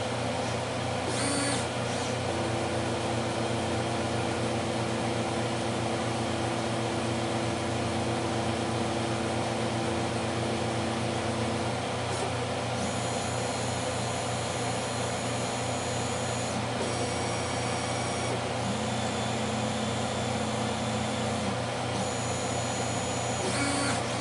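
A CNC router's stepper motors whine at steady pitches that switch on and off as the machine runs its automatic probing moves, stepping the end mill slowly up to a touch plate and back out. Underneath is a steady fan-like hum, with short bursts of noise about a second in and near the end.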